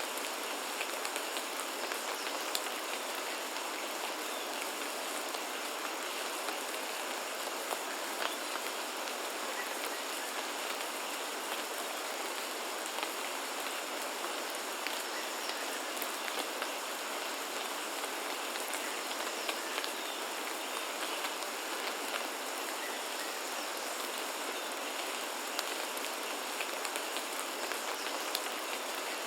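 Steady rain falling on a rainforest, an even hiss dotted with the ticks of individual drops.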